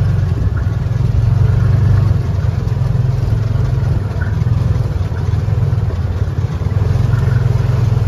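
Side-by-side UTV engine idling steadily, heard from inside its enclosed cab, with rain beating on the cab.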